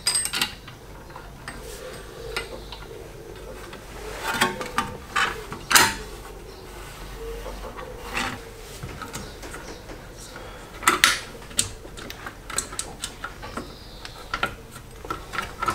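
Irregular small metal clicks, taps and scrapes as a drum handbrake's shoe retaining pin and its Lockheed washer are worked into place on the rear brake backing plate, with the loudest knocks about four to six seconds in and again about eleven seconds in.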